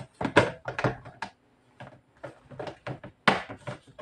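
Plastic Tupperware lid being pressed and clicked onto its container: a series of short clicks and snaps, with a brief pause about a second and a half in and a sharper snap a little past three seconds.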